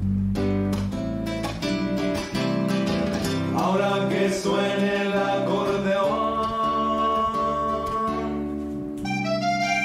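An electric bass guitar plays a few plucked notes. Then an acoustic guitar is strummed while a man sings, and near the end an accordion comes in.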